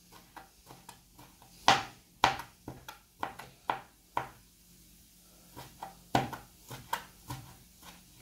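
Kitchen knife chopping soft eggplant pulp on a cutting board: irregular knocks of the blade against the board, a few much louder than the rest, with a short pause a little past the middle.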